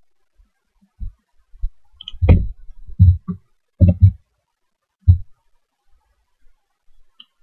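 About eight dull, low thumps over four seconds, close to the microphone: keys being struck on a desk keyboard.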